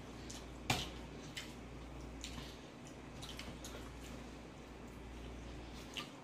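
Quiet, wet eating sounds from two people eating chicken wings by hand: scattered mouth clicks and lip smacks while chewing, with a sharper click under a second in and another near the end.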